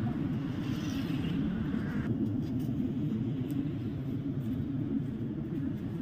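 Steady low rumble.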